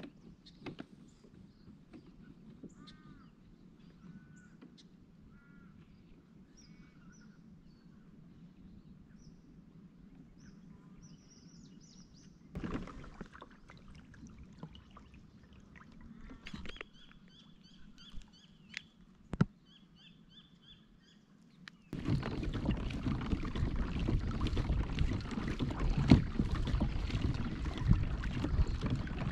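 Birds chirping softly in quiet surroundings, with a few sharp knocks. About two-thirds of the way through, a loud steady rushing noise starts and carries on.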